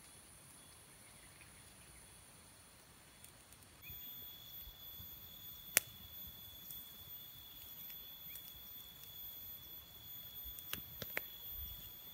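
Small campfire of split sticks crackling, with a few sharp pops (one loud about six seconds in, more near the end), over steady high-pitched insect buzzing that starts about four seconds in.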